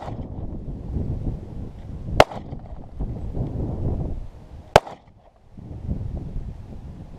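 Two single pistol shots from a Glock 23 Gen 4 in .40 S&W, about 2.2 and 4.8 seconds in, each a sharp crack, with a low rumble between them.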